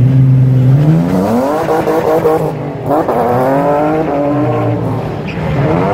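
BMW E46 drift car's engine running at a steady note, then revving hard twice as it pulls away, the pitch rising, shifting, rising again and dropping back.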